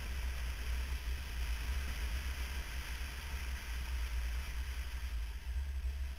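Steady wind buffeting on a motorcycle-mounted camera's microphone while riding at road speed, a heavy low rumble over an even rush of road and engine noise.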